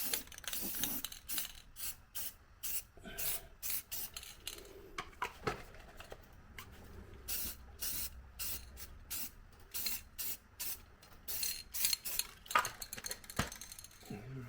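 Hand tools and metal parts clinking and scraping: a string of irregular short metallic clicks with some rubbing.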